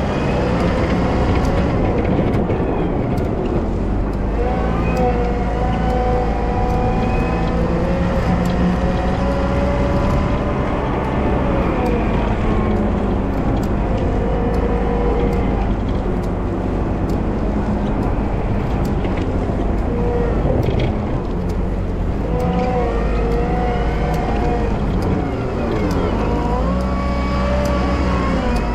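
Volvo wheel loader's diesel engine running steadily while plowing snow, its pitch rising and falling several times as it revs up and down.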